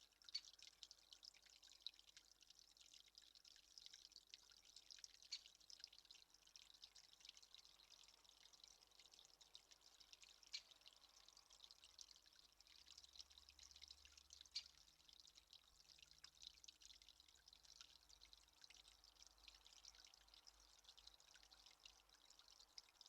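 Faint dripping water over a soft steady hiss, with many small irregular ticks.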